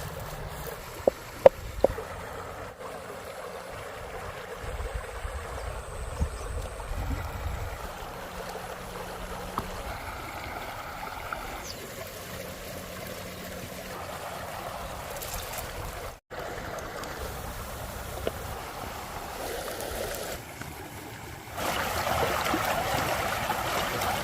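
River water flowing with a steady rushing, louder over the last few seconds, and a few sharp clicks about a second in.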